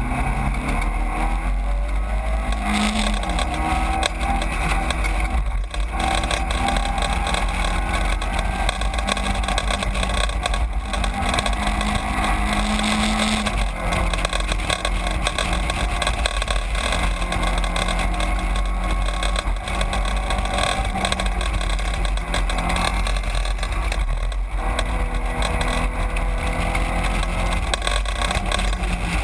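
Onboard sound of a Caterham Seven racing: its four-cylinder engine running hard, the pitch stepping up and down several times, over a steady low rumble of wind on the microphone of the open car.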